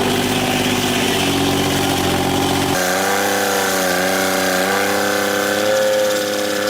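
A 1937 sawmill's machinery running steadily with an engine-like hum. About three seconds in the sound changes abruptly: the deep low end drops away and a wavering, higher-pitched tone takes over.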